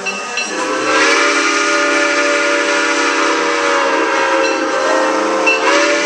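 Train whistle sounding a long chord of several tones, a blast of about four seconds, then a second blast starting near the end.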